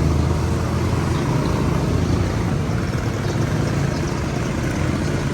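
A motor vehicle engine running steadily at low revs, a constant low hum with street noise around it.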